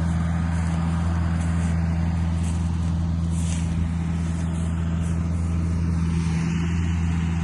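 Rice harvesting machine's engine running with a steady low drone.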